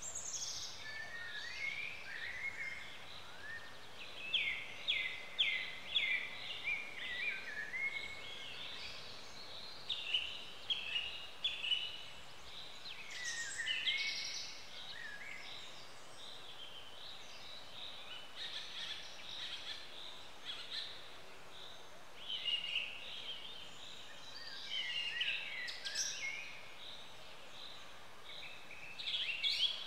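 Several songbirds chirping and trilling in woodland, in bursts of quick high notes with quieter gaps between, over a faint steady background hiss.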